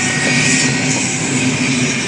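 Freight train running past with a loud, steady rolling noise, and a faint wheel squeal fading out near the start.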